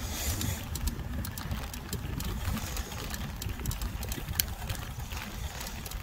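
Mountain bike riding along a paved path, heard from a handlebar-mounted phone: a steady low rumble of wind and tyres with scattered sharp ticks and rattles from the bike, one louder tick about four seconds in.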